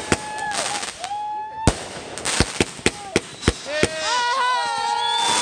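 Fireworks going off: a quick string of sharp bangs, about a dozen, from bursting aerial shells.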